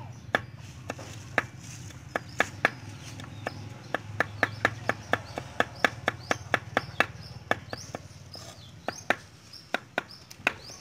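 Large kitchen knife chopping garlic on a wooden cutting board: sharp knocks of the blade on the wood in quick runs of several chops a second, with short pauses between runs.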